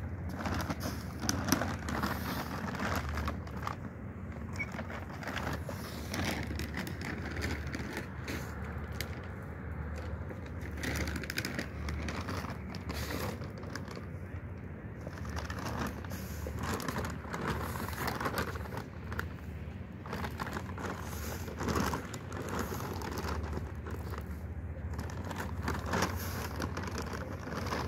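Rustling and crackling of a plastic bag of dry cat food being handled and poured out, over a steady low rumble.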